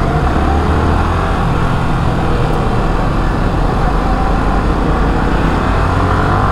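Motorcycle being ridden on the road: the engine runs under heavy wind rush on the microphone, its note climbing gently in the second half.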